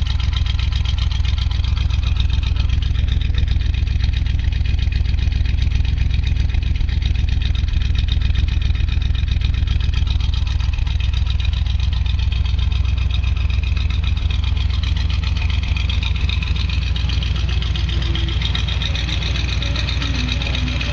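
Chevrolet 350 small-block V8 crate engine of a 1970 Chevy C10 idling steadily, a deep even rumble heard close to its side-exit exhaust tip.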